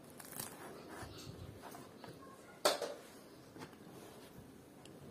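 Scattered small clicks and knocks of kitchen utensils and bowls being handled, with one sharp knock a little over halfway through.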